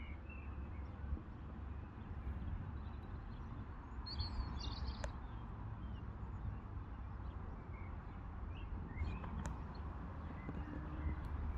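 Outdoor field ambience: a steady low rumble of wind on the microphone, with faint, scattered bird chirps.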